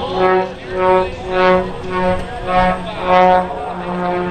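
Music: one note pulsing about twice a second over a steady low tone.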